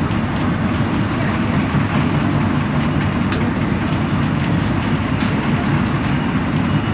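Steady low rumble of a city bus's engine and tyres heard from inside the cabin while it drives through a road tunnel, with a couple of faint clicks.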